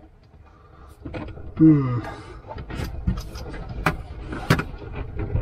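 Hands working at a camper van's cupboard: a run of light knocks, clicks and rustles from about two and a half seconds in, preceded by a short voiced grunt or murmur.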